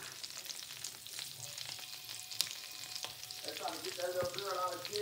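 Asparagus spears frying in butter and olive oil in a nonstick skillet over a gas burner: a steady sizzle with scattered crackling pops.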